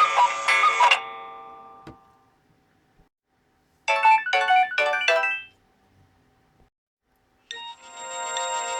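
Nokia 6131 mobile phone ringtones playing one after another. One melody cuts off and fades about a second in, followed by two faint clicks. A short phrase of four quick chords comes near the middle, and another ringtone begins near the end.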